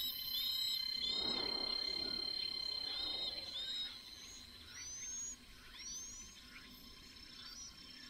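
Chinese hwamei nestlings begging at the nest: short high chirps about twice a second that stop about four seconds in, then a few rising high calls, over a steady high insect drone. A soft rustle sounds between about one and three seconds.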